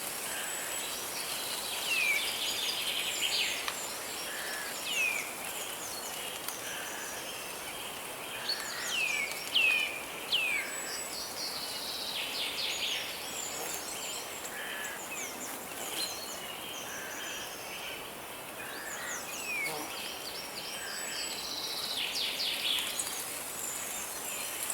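Forest birds singing: short whistled notes that sweep down in pitch, repeated every second or two, with quick trills between them. Behind them is the steady hiss of a flowing river.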